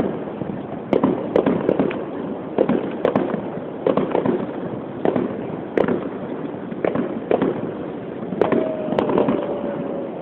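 Fireworks display: aerial shells bursting in a fast, irregular series, about two bangs a second, over a continuous rumble and crackle. A faint thin whistle, falling slightly in pitch, runs for a couple of seconds near the end.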